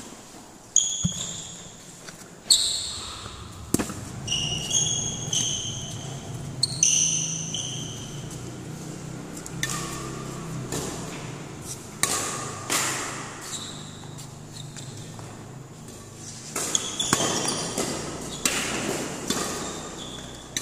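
Badminton rally: sharp cracks of rackets striking the shuttlecock every second or two, ringing in a large hall, with short high squeaks of shoes on the court floor.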